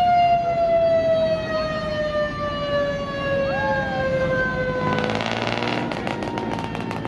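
A siren's tone slowly winding down in pitch. About five seconds in, a rapid rattling crackle joins it.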